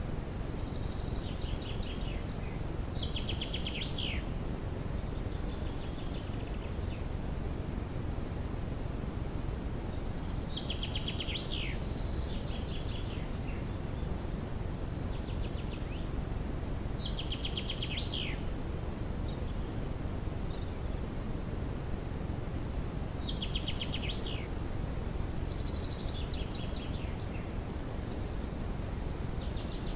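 A songbird singing the same short, fast phrase about every six to seven seconds, each ending in a quick falling sweep, over the steady low hiss of a camera trap's microphone.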